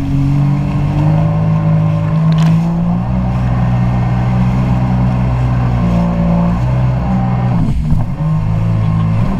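Jet ski engine running under way, its note stepping up and down with the throttle, with a brief dip about eight seconds in.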